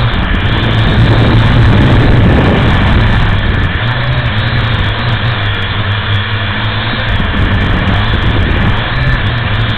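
A camera drone's electric motors and propellers running loudly and steadily, heard close up through its onboard camera. The low hum shifts slightly in pitch as the motors adjust while the drone flies low over the ground.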